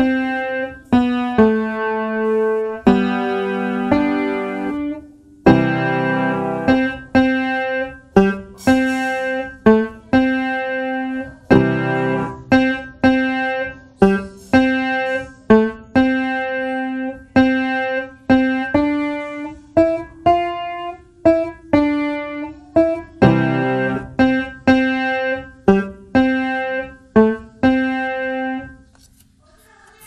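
Background piano music: a melody of struck notes, each fading after it sounds, about one or two a second, ending about a second before the end.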